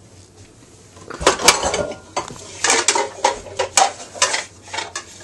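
Plastic bowls and dishes clattering as they are handled, a string of irregular knocks starting about a second in.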